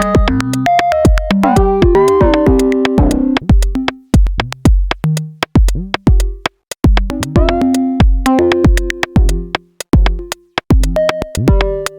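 Electronic music from a VCV Rack software modular synthesizer patch: drum-machine kick pulses and sharp clicks under synth notes stepping between pitches, some gliding, with the notes quantized from the Quad Deviant module's outputs. The texture thins to sparse notes and kicks about four seconds in, and the fuller pattern returns about three seconds later.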